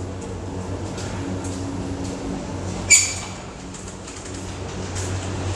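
Steady low machine hum of hatchery equipment, with a faint held tone about a second in and one short, sharp high-pitched sound about three seconds in.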